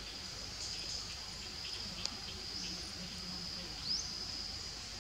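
Steady high-pitched drone of insects in the forest, with a sharp click about two seconds in and two short rising chirps, the louder one just before four seconds.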